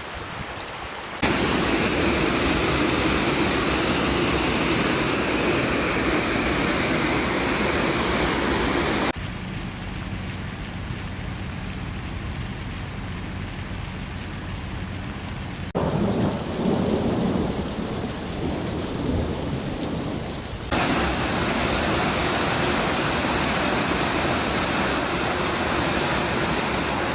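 Heavy rain and rushing floodwater as a steady, loud noise, broken by abrupt cuts between several clips.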